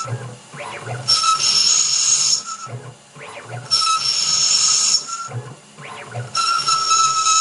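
Emco Turn 220 P CNC lathe running a threading cycle on a 12 mm thread of 1.25 mm pitch. It makes three passes, each a hiss with a steady high whine lasting about a second and a half. Between passes come short rising-and-falling whirs of the machine.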